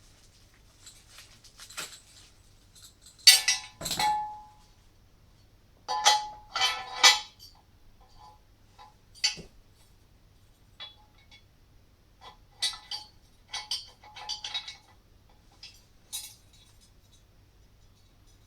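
Metal parts of a car lifting kit clinking and clanking as they are handled and unpacked: irregular knocks, some with a short ringing tone, loudest about three to four seconds in and again around six to seven seconds.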